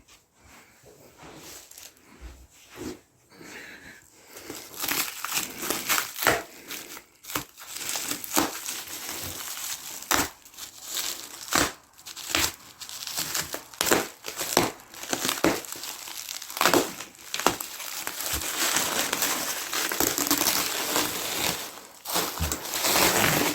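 Packaging being pulled open and crumpled by hand: dense crinkling and rustling with many sharp crackles, starting about four seconds in after a quieter opening.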